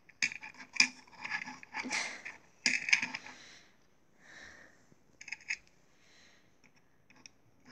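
Small plastic toys being handled: a run of clicks, knocks and short rustles for the first three seconds or so, then a few light clicks a little after five seconds.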